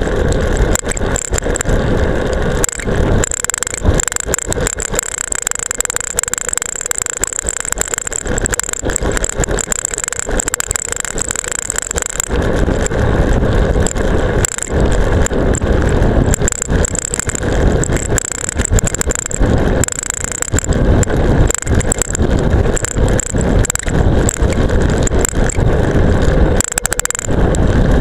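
Action camera strapped to a road bike's seatpost rattling hard against its mount during a fast descent, with wind rumble on the microphone that is heaviest from about twelve seconds in.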